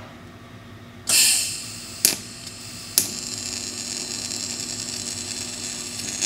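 Electric welding arc tack welding a geared hub motor's freewheel clutch plate to its collar, locking the clutch shut for regenerative braking. A loud burst of arc crackle about a second in and two sharp snaps about a second apart, then the arc runs with a steady crackling hiss over a low hum until it cuts off near the end.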